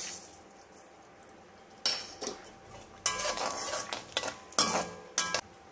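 Metal spoon knocking and scraping against an iron kadai while mustard seeds, dried red chillies and asafoetida are stirred into hot sesame oil for tempering. A couple of knocks about two seconds in, a scraping clatter lasting about a second, then two sharp clicks near the end.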